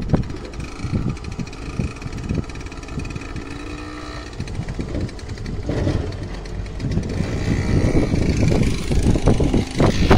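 Small motorcycle engine running as it rides slowly over the level crossing. It grows louder in the second half as it passes close by.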